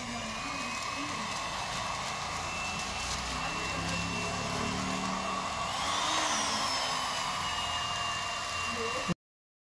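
Hot air gun's blower running steadily, a whirring rush with a thin motor whine that rises briefly about six seconds in and settles back. It stops abruptly near the end.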